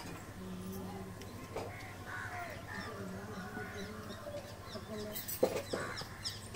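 Faint voices talking in the background with birds calling, and one sharp knock a little after five seconds in.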